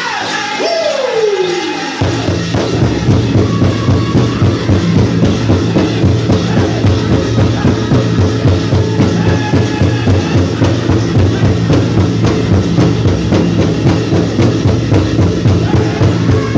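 Powwow drum group: a singer's voice slides down in pitch. About two seconds in, the big drum comes in with a steady, even beat of roughly two and a half strokes a second, with the group's singing over it.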